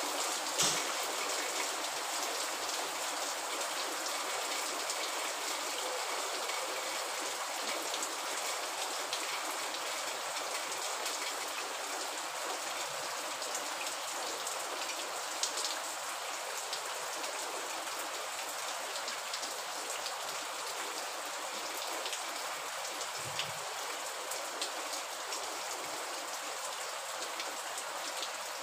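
Steady rain falling on a surface, an even hiss with a few sharp ticks scattered through it.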